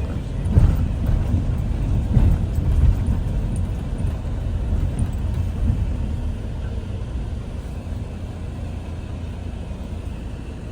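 Low, steady rumble of a road vehicle on the move, with a few louder bumps in the first three seconds; the rumble eases a little toward the end.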